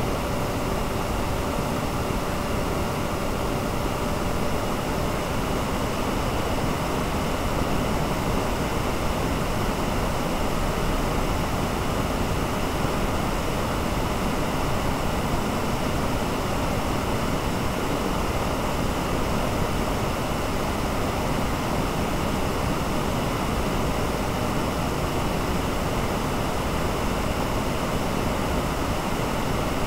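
Large football stadium crowd's steady roar, cheering a goal.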